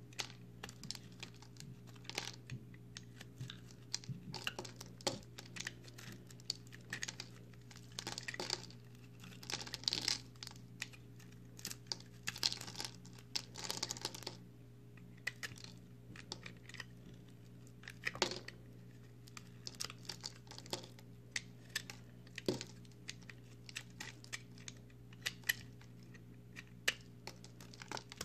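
Utility-knife blade shaving and cutting a block of dry, crumbly recycled soap: a fast, irregular run of small crunches and crackles as chips break away, thicker in a few stretches of denser scraping.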